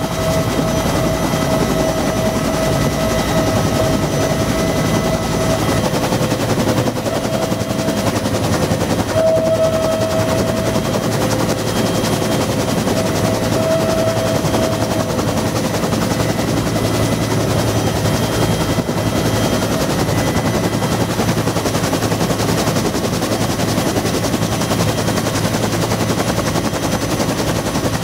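Bell UH-1B Huey helicopter heard from inside its cabin: the rapid chop of the main rotor blades under a steady whine from its Lycoming T53 turboshaft engine, running loud and even.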